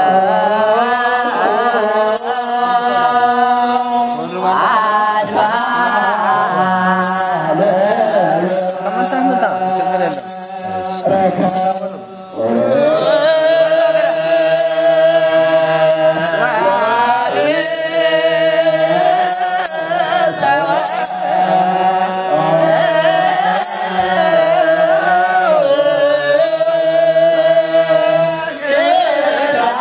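Ethiopian Orthodox clergy chanting a hymn together, with sistrum rattles shaken on a steady beat about once a second. The singing thins out briefly about eleven seconds in, then comes back in full.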